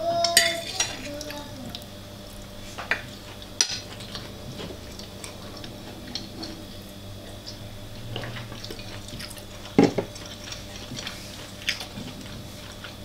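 Utensils clinking now and then against a dish during a noodle meal: scattered light clicks, the loudest about ten seconds in.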